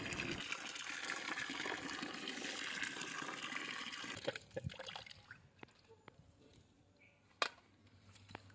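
A thin stream of water pouring and splashing onto raw chicken pieces on a steel plate as they are rinsed by hand, fading out about four seconds in. After that it is quieter, with a few small clicks and one sharp click near the end.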